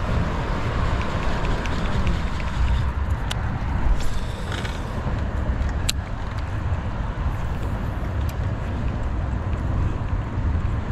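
Steady low rumble of wind on the microphone, with the faint ticking of a baitcasting reel being cranked and a few sharp clicks.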